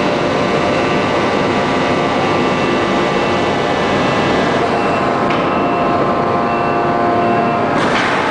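1250-ton open-die forging press running: a loud, steady mechanical drone with several steady whining tones over it, and a brief hiss near the end.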